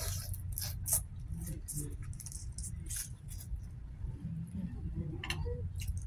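Mouth and hand sounds of someone eating boiled blue crab: wet smacks and sucks as crab meat is pulled from the shell with the mouth, with short crackly clicks from shell pieces being picked apart. A steady low rumble runs underneath.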